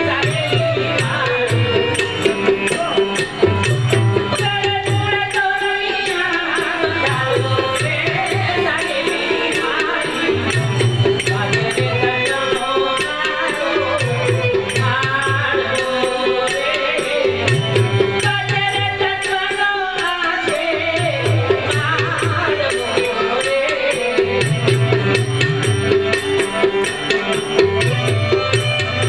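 A man singing a devotional bhajan while accompanying himself on the harmonium, which holds a steady drone under the melody. A fast, even jingling rattle keeps time, with a low beat about every two seconds.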